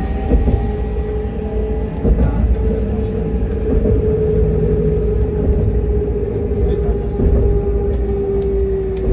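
Electric tram's traction motors whining inside the passenger cabin, a steady tone that rises slightly then slowly falls as the tram's speed changes, over the low rumble of the wheels on the rails.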